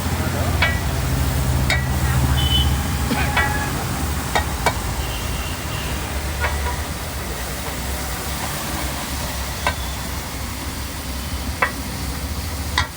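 Tawa pulav stirred on a large iron tawa: a metal spatula clinks and scrapes against the griddle a dozen or so times at irregular intervals over a steady sizzle, with a low steady hum underneath.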